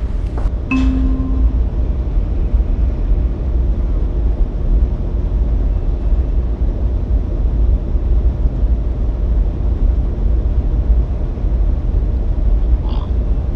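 Steady low rumble, with a brief click and short tone about a second in and a few short chirping calls near the end.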